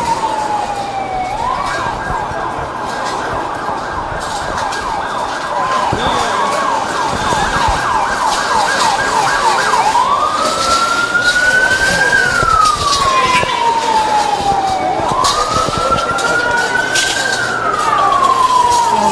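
Emergency vehicle siren: a slow wail rising and falling, switching about a second in to a fast yelp for several seconds, then back to slow rise-and-fall wails, over street noise.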